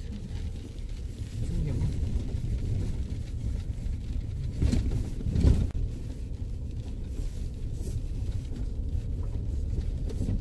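Steady low rumble of a SsangYong Rexton Sports Khan pickup driving along an unpaved dirt road, heard from inside the cab, with two louder knocks about halfway through as it goes over bumps.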